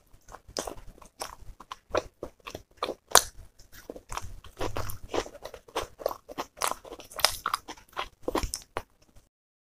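A person eating chicken masala curry and roti by hand, picked up close by a clip-on microphone: a steady stream of bites, chewing and crunches with small wet clicks. The sound cuts off abruptly near the end.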